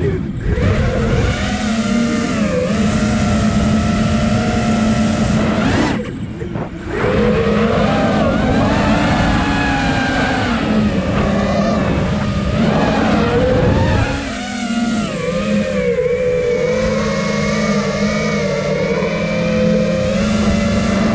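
Five-inch Nazgul Evoque 5 FPV freestyle quadcopter's brushless motors and propellers whining, the pitch rising and falling with throttle. The sound drops away briefly twice, about six and fourteen seconds in.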